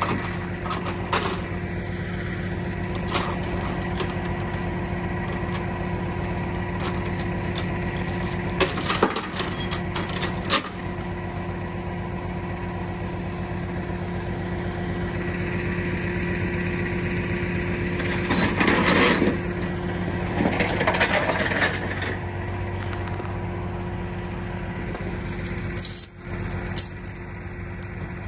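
Rollback tow truck's engine running steadily during loading, with a couple of sharp metal clanks about nine and ten seconds in and bursts of chain-like rattling midway through.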